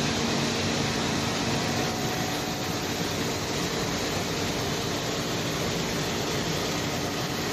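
Steady hum and hiss of machining-shop machinery with slow-traverse wire-cut EDM machines running, an even noise with faint steady tones and no distinct strokes.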